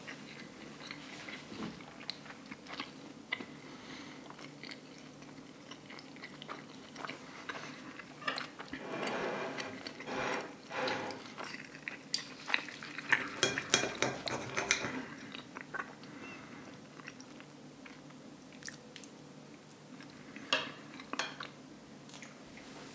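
Table knife and fork cutting a chicken burger on a plate: the blade sawing through the bun, with cutlery clicking and scraping against the plate. The clicks come thickest about halfway through.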